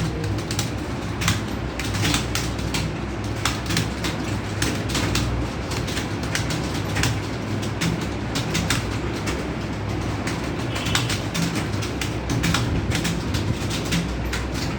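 Computer keyboards being typed on during a typing test: a dense, irregular clatter of keystrokes over a steady low hum.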